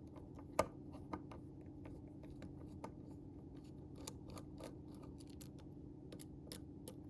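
Faint scattered clicks and ticks of a T8 Torx driver and small metal knife parts being handled as a folding knife's pivot screw comes out, the sharpest click about half a second in, over a steady low hum.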